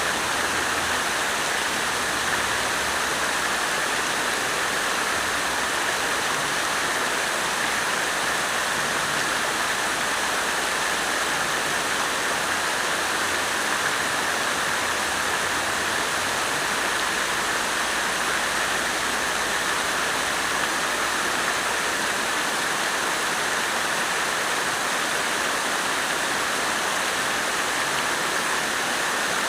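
Water fountain running, a steady rush of falling, splashing water with no change throughout.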